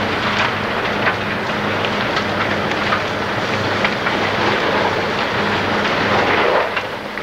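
Large wooden pallet factory fire burning: a steady roar with frequent crackles and pops, over a steady low hum, a little quieter near the end.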